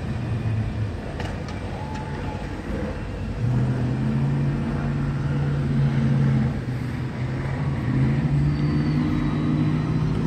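Car engine held at steady high revs for a few seconds, easing off briefly about two-thirds of the way in, then held again, from a driver burning rubber, over a wash of street noise.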